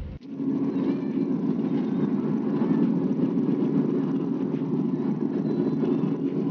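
Steady road and engine noise of a vehicle driving along, starting abruptly a moment in.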